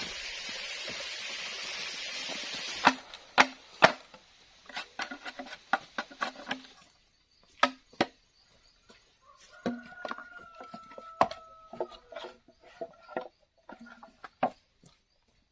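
A steady hiss cuts off about three seconds in, and three loud, sharp knocks on wood follow about half a second apart. After them comes a string of lighter, irregular knocks and taps, like wood being chopped or struck during building work.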